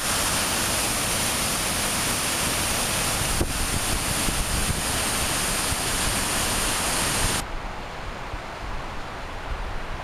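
Waterfall pouring down rocks at close range: a loud, steady rush of water that cuts off suddenly about seven and a half seconds in, leaving a quieter, duller noise.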